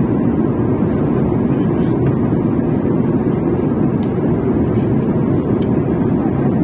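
Passenger airliner cabin noise in flight: a steady, even rush of engine and airflow noise, with a couple of faint clicks.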